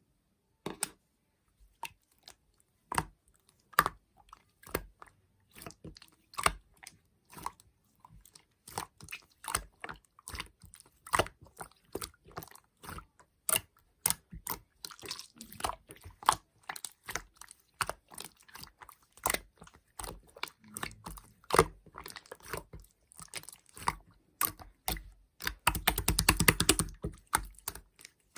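A gray marbled material being squeezed and handled up close, giving irregular sharp clicks and crackles. There is a dense, rapid crackling for about two seconds near the end.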